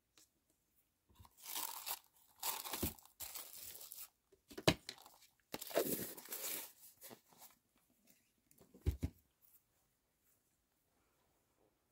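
Plastic wrap crinkling in several rustling bursts as it is handled. A sharp click comes about halfway through and a low knock a few seconds later, as things are set down on the desk.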